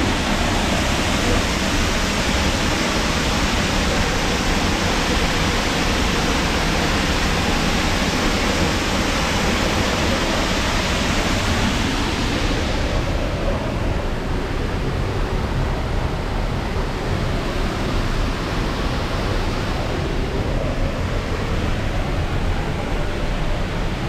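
Upper Düden Waterfall's water falling in a loud, steady rush, heard from the rock passage behind the falls. About halfway through, the high hiss falls away and the rush turns duller.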